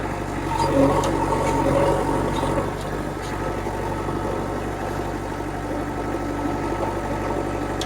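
Diesel engine of heavy earthmoving machinery running steadily at idle, a little louder and busier for the first couple of seconds before settling.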